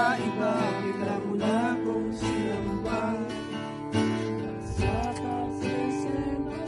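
Acoustic guitar strumming and accompanying a voice that sings a slow melody with wavering, held notes.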